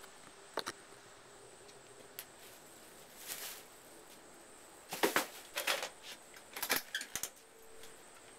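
A few scattered clicks and knocks with short rustling noises over faint background hiss, the loudest cluster a little past halfway.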